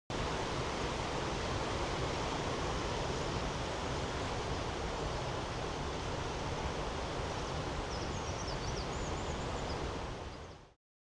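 Mountain stream rushing over rocks, a steady rush of flowing water. A few faint high chirps come in near the end, and the sound fades out quickly just before the end.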